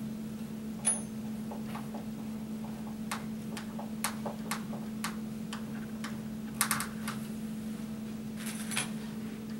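Hand screwdriver driving metal cam bolts into a particleboard panel: a scattered run of light clicks and ticks. Near the end comes a brief jingle of small metal hardware being handled.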